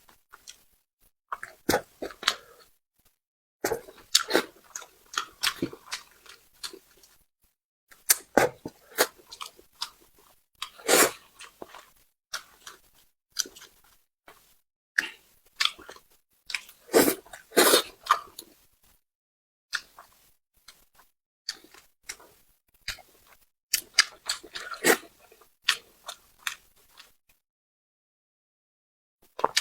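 Close-miked chewing and smacking mouth sounds of a person eating spicy braised carp. The sounds come in irregular bursts of wet clicks, separated by brief silent gaps.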